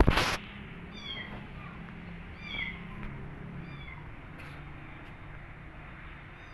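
A young kitten mewing: several short, high-pitched mews, the cries of a kitten left alone and calling for its mother. A loud brief bump right at the start.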